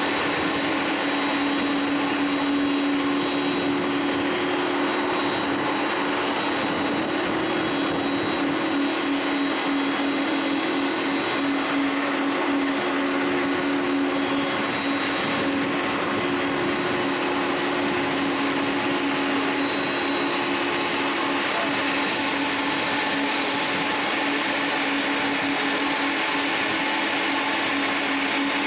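Jet aircraft engines running steadily: a constant rush with a steady low hum. A second, slightly higher hum drops out about three-quarters of the way through.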